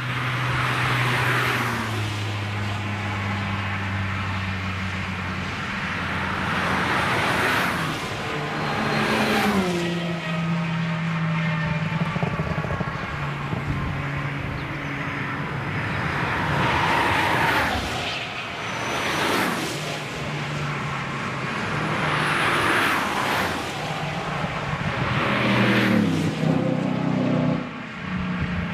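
A string of cars driving past at speed on a race track, about seven in turn, each engine note growing loud, passing, and dropping in pitch as the car goes by.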